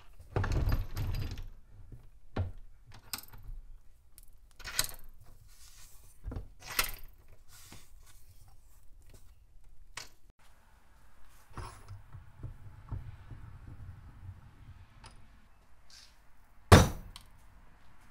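Cast-iron bench vise handled on a wooden workbench: scattered metal knocks and clunks, a clattery run in the first second or so, and one loud knock near the end.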